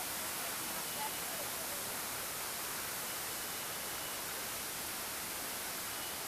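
Steady, even hiss of a fountain's splashing water.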